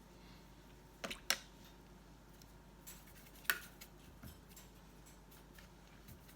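Watercolour painting tools against the work surface: a few sharp light clicks and taps, two close together about a second in and one louder about three and a half seconds in, with fainter ticks between.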